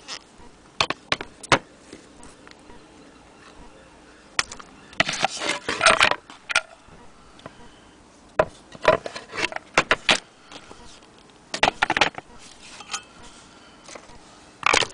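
Cast-iron hand-crank wheel and frame of a Willcox & Gibbs sewing machine being handled and knocked against its wooden base: clusters of sharp clicks and knocks, the busiest run about five to six and a half seconds in.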